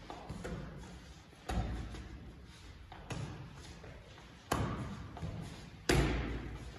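Boxing gloves smacking into focus mitts during pad work: sharp hits about every second and a half, each echoing in the room, the loudest near the end.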